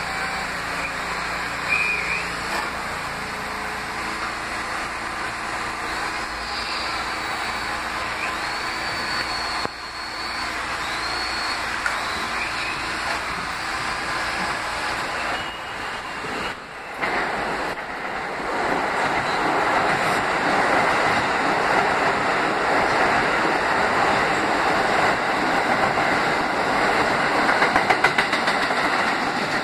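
R160 subway train running through a station without stopping: a steady rumble of wheels on rail with brief high wheel squeals in the first half. The noise grows louder as the cars pass close in the second half, with a quick run of wheel clacks near the end.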